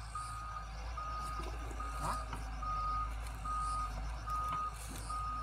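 Wheeled excavator's warning alarm beeping, one steady high-pitched beep repeating a little faster than once a second, over its diesel engine running.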